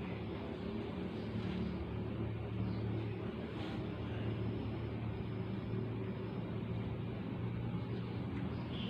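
Steady low drone of running machinery, even in pitch, under a constant hiss.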